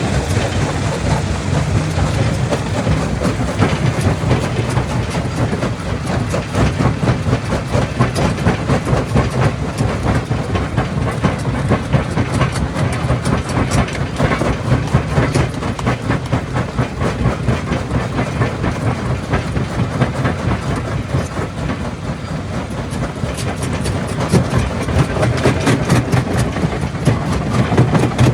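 Jaw crusher running and crushing rock: continuous clattering and cracking of stone over a steady low machine hum.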